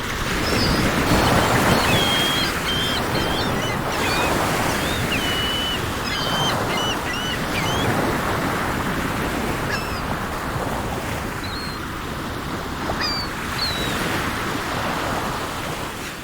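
Sea waves washing steadily, with birds chirping over them in many short, high calls.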